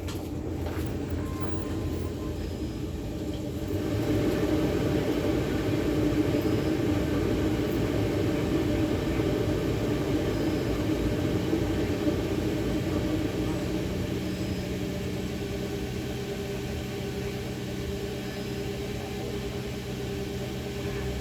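A car pulling up with its engine running, louder from about four seconds in, then easing into a steady idle.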